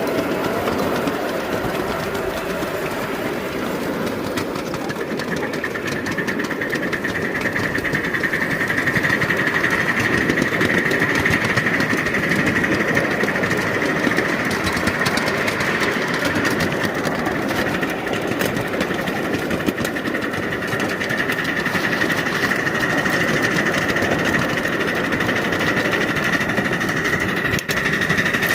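A machine running steadily, with a high steady whine that sets in about five seconds in.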